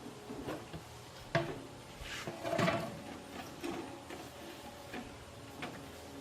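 Scattered knocks, clicks and clatter of hard objects being handled and set down, with a sharp knock about a second and a half in and a louder clatter a second later.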